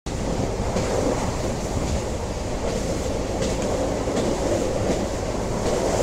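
Train running along the track: a steady rumble with faint, irregular clicks from the wheels.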